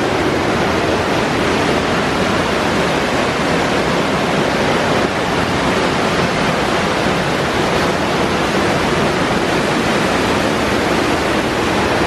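Waterfall running high, a steady loud rush of water pouring over a broad rock ledge.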